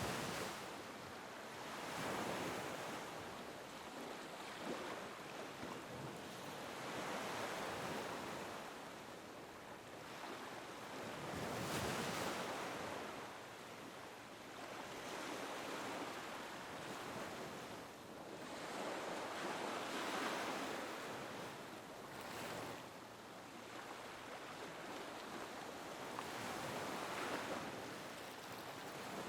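Small waves lapping and washing onto a beach, in an even rush that swells and falls every few seconds.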